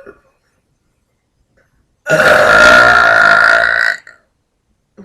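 A woman's single long, loud burp, starting about two seconds in and lasting nearly two seconds.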